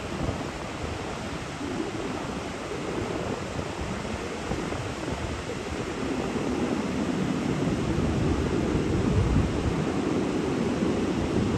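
Steady wash of ocean surf breaking on a flat sandy beach, a low, even rush that swells louder from about six seconds in.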